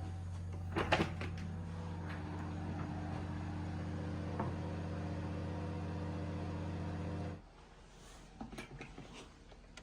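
A steady electric hum with a few light clicks over it, cutting off suddenly about seven seconds in; faint scattered clicks follow.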